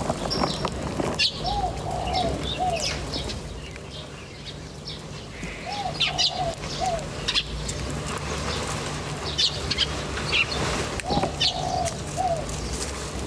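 A dove cooing a short phrase of three or four notes, repeated three times about four to five seconds apart. Small birds chirp briefly and high-pitched around it.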